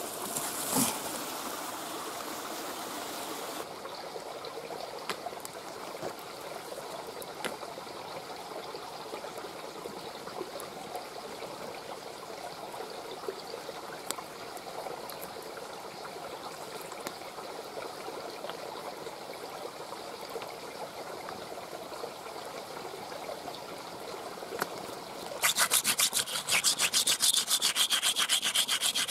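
A steady rush of river water with occasional small snaps and clicks. Near the end comes a loud, fast rasping scrape of wood being worked, like branch wood being sawn or scraped.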